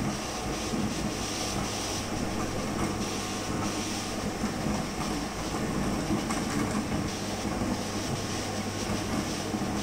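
Cutting plotter running, its motors whirring and its rollers driving the printed sticker sheet back and forth while the cutting head traces around the logos, over a steady low hum.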